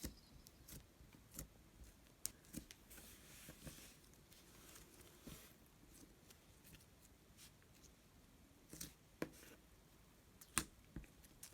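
Slime being handled: faint, irregular sticky clicks and short crackles, a few louder pops about nine and ten and a half seconds in.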